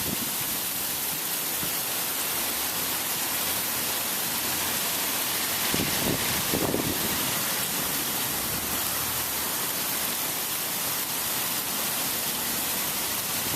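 Heavy rain from a severe thunderstorm falling in a steady, even hiss.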